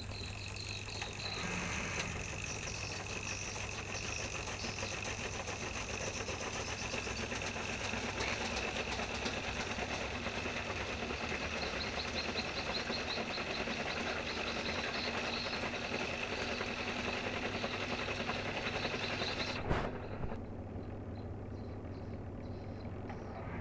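Washing machine's electric motor running steadily with a high whine over a low hum. A click comes about twenty seconds in, after which the whine stops and only a quieter hum remains.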